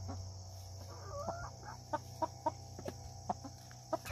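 Chickens clucking softly: a short rising call, then a run of short, evenly spaced clucks, about three a second. This is the wary clucking of hens nervous about something new in their run.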